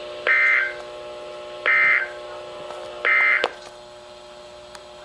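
Emergency Alert System end-of-message data tones: three short bursts of warbling two-tone digital signal, about a second and a half apart, marking the end of the flash flood warning broadcast. A steady hum runs underneath.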